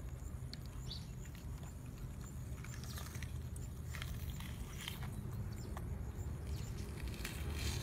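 Faint, sparse clicks and small wet handling noises as a gutted snake's innards are pulled out by hand, over a low steady rumble.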